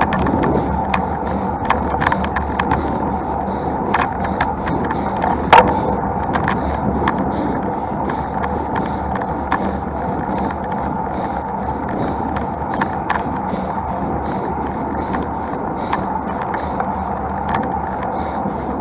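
Steady road and riding noise from a road bike climbing, with frequent small rattling clicks and one louder knock about five and a half seconds in.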